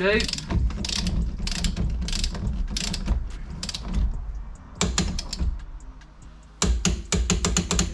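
A ratchet wrench clicking as the bolt holding a VW T5 steering wheel to its column is wound in and tightened, in runs of quick clicks with a short lull, then a fast run of clicks near the end.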